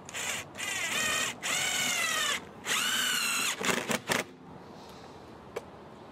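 Cordless drill driving a 1 5/8-inch pan head self-drilling screw through a window's nail fin. The motor whines in four runs, its pitch dipping and recovering under load as the screw drills in, then gives a few short pulses about four seconds in as the screw is finished.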